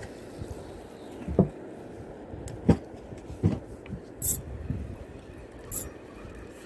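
Irregular sharp knocks and thumps, roughly one every second, with two brief high hissing bursts, over steady wind and water noise: handling noise from a spinning rod and reel being worked from a small boat.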